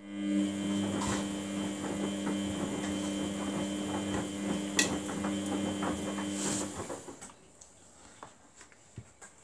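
Samsung WF80F5E0W4W front-loading washing machine tumbling its wash: the drum motor hums steadily while water and laundry slosh in the drum, with one sharp knock about halfway through. The motor stops after about six and a half seconds and the drum rests, leaving only faint splashes and drips.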